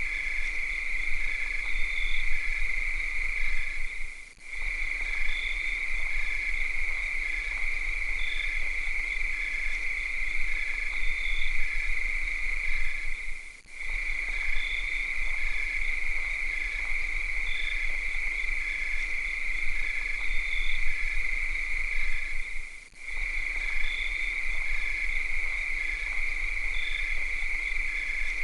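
Cicadas singing at night in one steady, continuous high buzz. A fainter chirp repeats about twice a second underneath. The chorus dips briefly three times, about nine seconds apart.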